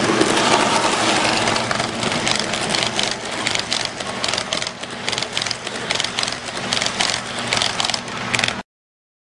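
Model passenger train rolling past close by: a steady running noise with a low motor hum, then rapid, irregular clicking of the wheels over the track as the cars go by. The sound cuts off suddenly near the end.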